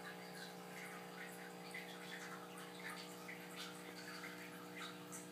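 Faint room tone: a steady low hum with scattered soft ticks.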